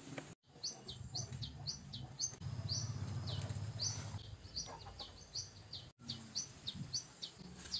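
A bird calling: a long run of short, high chirps, each sliding down in pitch, about three a second, with a low rumble underneath in the first half.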